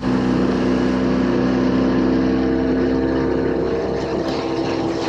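Outboard motor of a small aluminium dinghy running steadily at speed, with a slight change in pitch near the end.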